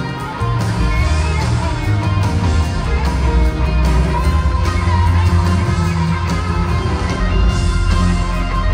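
Live rock band playing an instrumental passage: electric guitar over bass, drums and keyboards, with no singing.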